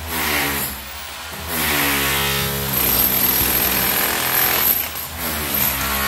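Electric demolition hammer chipping up old floor tile and its thinset bed. It runs briefly at the start, drops back, then runs steadily from about a second and a half in.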